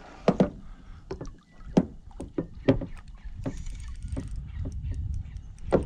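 A hooked flathead splashing at the surface beside a small boat as it is brought to the landing net. Sharp splashes and knocks come every second or so over a low rumble of water and wind.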